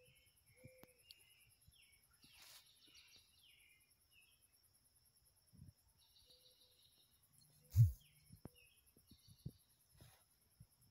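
Outdoor ambience of birds chirping in short scattered calls over a steady high insect trill, with one dull low thump about eight seconds in.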